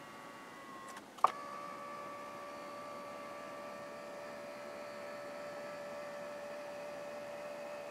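BMW 7 Series power seat motors whining steadily after a click about a second in, as the electric footrest unfolds from the back of the front passenger seat.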